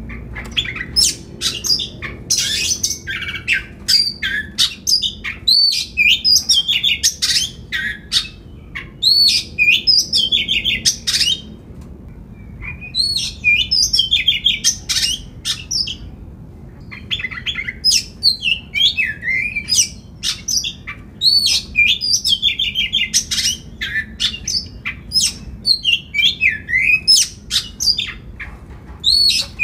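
Oriental magpie-robin singing a long, varied song: phrases of rapid whistled notes, upslurs, downslurs and trills, separated by short pauses.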